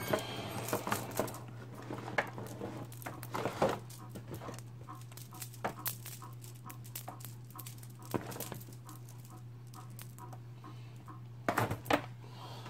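Scattered clinks and knocks of chainsaw chains being handled at the workbench, swapping a freshly sharpened chain for the next one, over a steady low hum.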